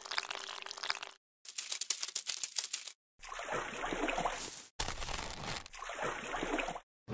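Edited stop-motion sound effects: crinkling and crackling for about the first three seconds, then a watery, sloshing trickle in two stretches. Each sound cuts off abruptly into silence.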